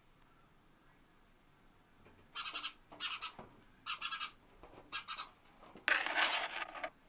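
A small bird trapped between window panes flutters against the glass in four or five short bursts of wingbeats, starting about two seconds in, then one longer, noisier bout near the end.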